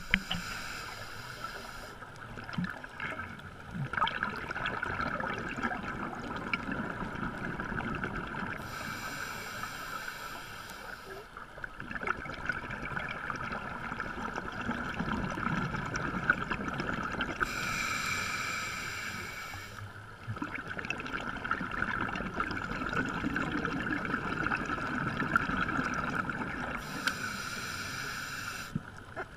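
Underwater sound of a scuba dive: the hiss and rush of a diver's exhaled regulator bubbles comes every eight to nine seconds, over a steady underwater hiss.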